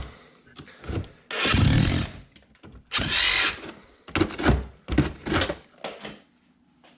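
A 1 9/16-inch rotary hammer chipping ice out of a refrigerator ice maker, run in about five short bursts of hammering, the longest about a second, that stop about six seconds in.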